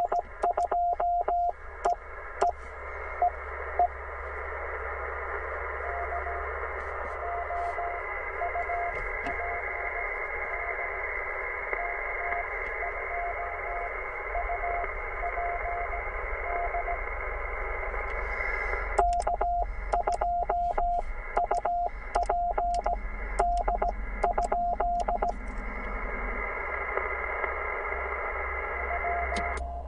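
Morse code on a Penntek TR45L CW transceiver: a steady receiver hiss with a weaker station's code tones coming through it. Near the start and again past the middle, the louder sidetone of the operator's own sending cuts in, with the receiver muting between the dots and dashes and the key clicking.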